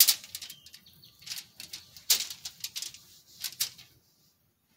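Aluminium foil rustling and crinkling in several short bursts as hands lay chile strips and vegetable slices on it, the loudest at the start and about two seconds in, stopping about four seconds in.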